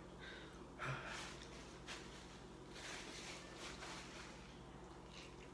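Faint slurping of instant noodles eaten with chopsticks: a series of short, soft slurps about a second apart.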